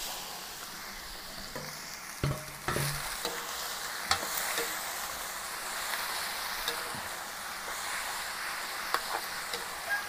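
Marinated beef sizzling as it hits a hot wok of sautéed garlic and onion, stirred with a metal spatula that knocks and scrapes against the pan now and then.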